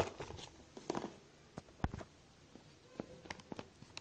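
A smartphone being lifted out of its cardboard box tray by hand: soft rustles, scrapes and small clicks of cardboard and phone, with one sharper knock a little before two seconds in.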